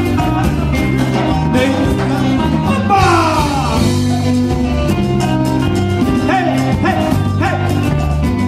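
Live band playing Latin dance music: a steady, repeating bass line under drums and electric guitar, with a melodic line gliding above.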